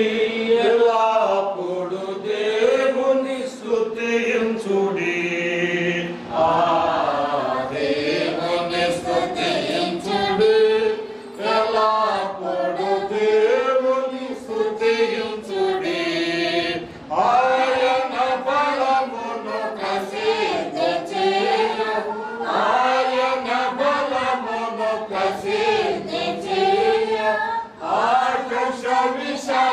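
A group of people singing a Christian hymn together in Telugu, in long sung phrases.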